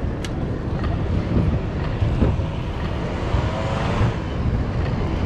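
Wind buffeting the microphone and the low rumble of a fixed-gear bicycle rolling over cobblestones, with scattered short clicks and rattles.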